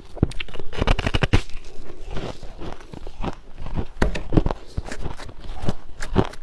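Refrozen ice being bitten and crunched between the teeth: dense, irregular cracking and crackling, with clusters of sharp snaps about a second in and again around four and six seconds in.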